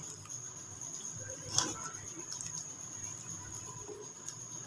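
Faint wet squishing of a spatula stirring beef slices through a thick yogurt-and-spice marinade in a bowl, with one sharper tap about a second and a half in. A faint steady high whine sits underneath.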